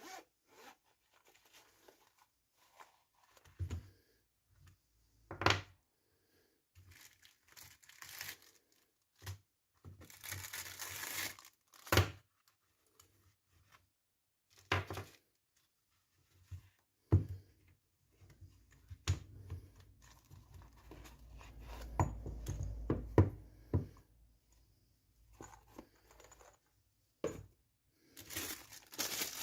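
Packaging being handled during unboxing: plastic or paper crinkling and tearing in irregular stretches, with scattered knocks and clicks as items are moved about.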